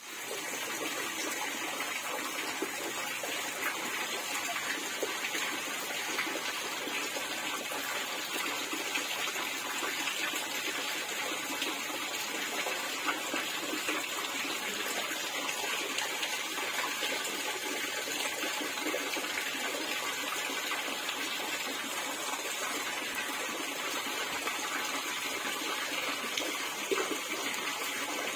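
Steady rush of running water, holding at an even level without a break.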